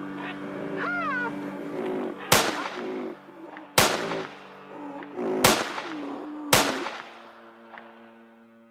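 Animation soundtrack: sustained music with two short rising-and-falling calls, then four gunshot sound effects at uneven intervals of one to two seconds, each with a brief ringing tail. The shots go with a rifle-scope crosshair picking off rhinos, the film's depiction of rhino poaching.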